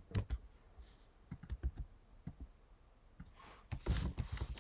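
Typing on a computer keyboard: scattered key clicks, with a busier run of keystrokes near the end.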